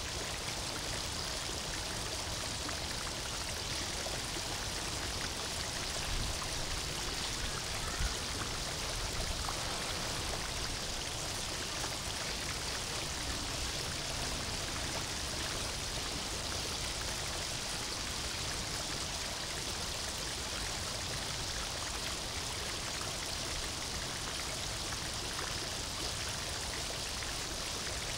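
Steady rush of running water, with a couple of brief low thumps about six and eight seconds in.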